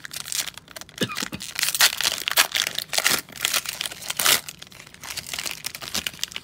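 Foil wrapper of a 2021 Panini Mosaic football cello pack crinkling and tearing as it is pulled open by hand. The irregular crackles are busiest in the first four seconds or so and lighter near the end.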